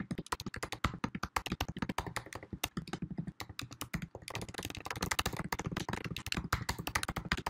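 Fast, steady typing on a computer keyboard: a dense run of key clicks, many keystrokes a second, with no pause.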